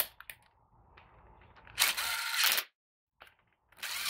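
Socket ratchet clicking in two quick runs, about two seconds in and near the end, with a few light tool clicks before, as the oil pump mounting bolts are run down before torquing.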